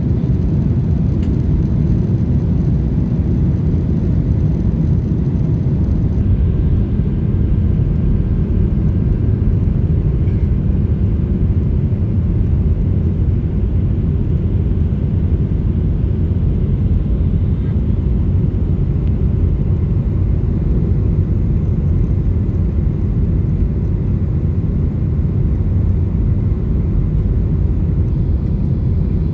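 Steady cabin rumble of a Boeing 737-600 airliner in flight: engine noise and airflow heard from inside the passenger cabin, strongest in the low range and unbroken throughout.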